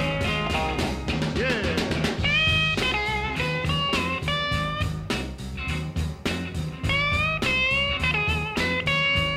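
Intro music: a guitar-led, bluesy tune with a steady drum beat and a melody whose notes bend and waver.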